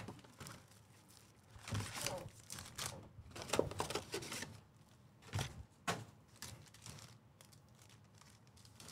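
Plastic shrink wrap crinkling and a cardboard trading-card box being torn open, then foil card packs pulled out and spread on a mat, in a handful of separate rustles and tearing sounds with quiet gaps between.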